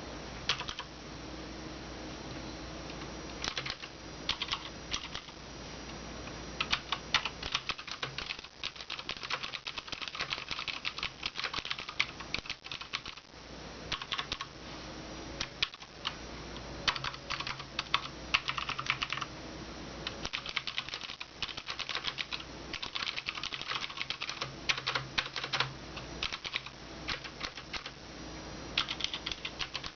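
Typing on a Cooler Master MasterKeys Pro M mechanical keyboard with Cherry MX Blue clicky switches: quick runs of sharp keystroke clicks broken by short pauses.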